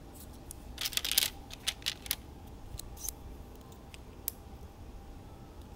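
Plastic Lego bricks clicking and clattering as they are handled and snapped together: a quick cluster of clicks about a second in, then a few scattered single clicks.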